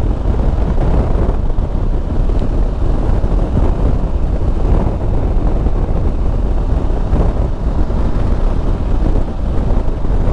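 Steady wind rush buffeting the microphone on a Yamaha Super Ténéré adventure motorcycle cruising at highway speed, with the bike's parallel-twin engine and tyre noise running under it.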